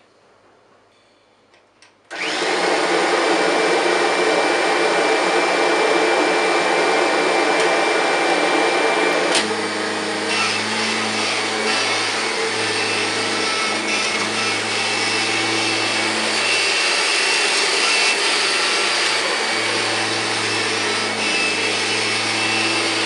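1999 Kirby G5 upright vacuum cleaner switched on about two seconds in and running loud, with a steady high whine. About nine seconds in there is a click, after which a deeper hum joins and the sound varies a little as it is pushed over carpet.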